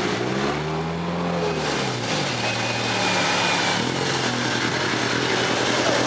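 Nissan Patrol GR's diesel engine revving under load off-road. The engine note rises about half a second in, drops back just before two seconds, holds steady, and climbs again around four seconds.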